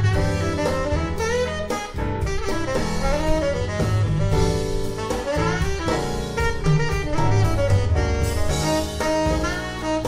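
Jazz with a saxophone lead over double bass and drum kit, played back on the Visaton Project speakers. These use a Visaton DTW 8.12 NG soft-dome tweeter and a W 170 S woofer and are driven by an Elekit TU-8900 tube amplifier running 300B triodes at about 8 watts.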